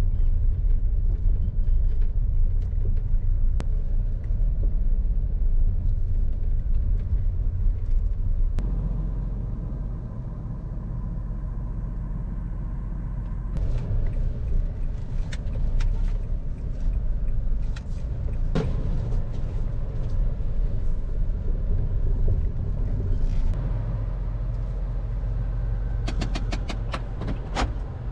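Low rumble of a Honda car driving slowly, heard from inside the cabin: engine and tyre noise, with scattered clicks and knocks. A quick run of ticks comes near the end.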